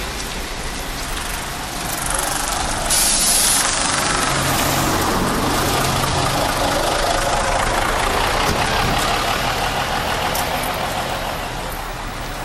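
Road traffic with a heavy vehicle's engine running by. There is a short hiss about three seconds in, followed by several seconds of engine hum that eases off near the end.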